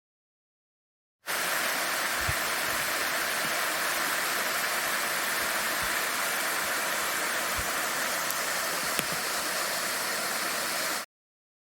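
Steady rush of flowing creek water. It cuts in about a second in and stops abruptly near the end.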